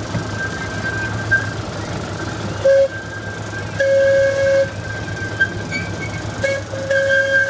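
Narrow-gauge park train running with a steady low rumble and a constant high whine, while the locomotive's whistle sounds four times on one pitch: a short toot, a longer one, another short toot, and a long blast starting near the end.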